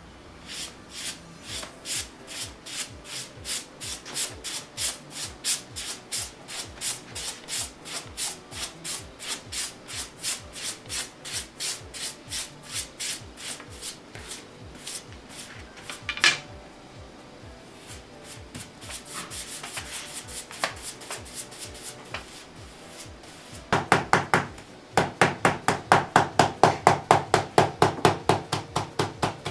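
A wide restorer's brush swept again and again over a sheet of tissue paper laid on a scroll painting, in even strokes about two a second. This is the protective temporary facing (omote-uchi) being brushed down. A single sharper knock comes about 16 s in, and from about 24 s the strokes get louder and come a little faster.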